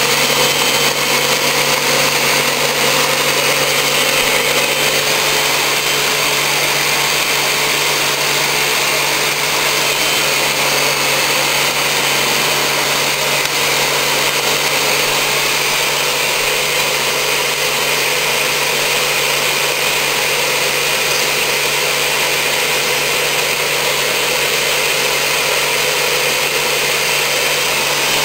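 Ninja Kitchen System 1200 blender running steadily, its blades churning frozen fruit and water into a purée.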